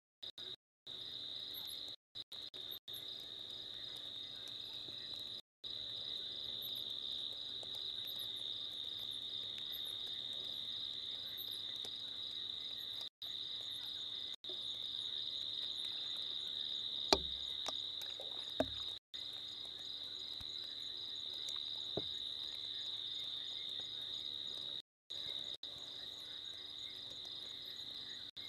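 Steady night chorus of insects such as crickets, a continuous pulsing high trill, cut by several brief gaps where the sound drops out completely. Two short sharp clicks come about two-thirds of the way through.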